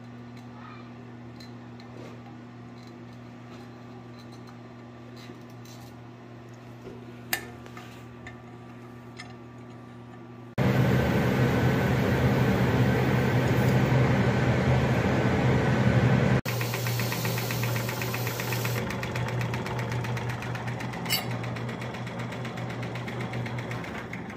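Electric shop machine motor humming steadily, with scattered light clicks and taps. About ten seconds in, a much louder rushing machine noise starts suddenly. It breaks off abruptly, then a similar noise runs on and slowly dies away.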